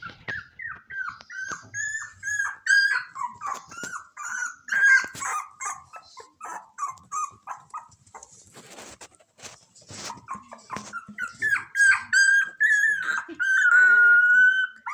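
Shiba Inu puppy whining in a steady run of short high-pitched whimpers and yips, with one longer drawn-out whine near the end.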